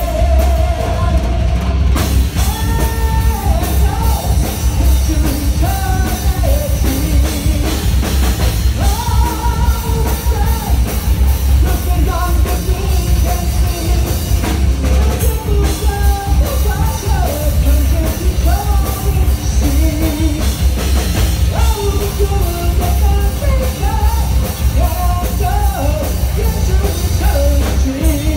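Live rock band playing: electric guitars, bass and drum kit under a singer's sustained, melodic vocal lines, with a heavy low end.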